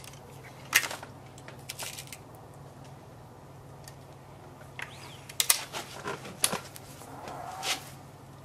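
A run of sharp clicks and knocks from an HW97 underlever spring air rifle being cocked and loaded on the bench, with the loudest click about a second in and a quick cluster about five and a half seconds in.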